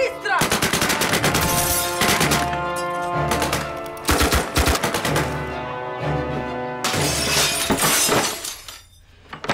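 Rapid bursts of submachine-gun fire, three runs of fast shots, over dramatic orchestral music, with glass breaking; the music and shots die away near the end.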